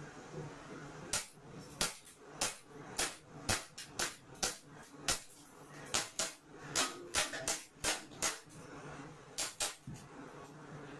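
Gas-powered airsoft pistol firing a string of single shots, one or two a second, irregularly spaced, stopping about ten seconds in.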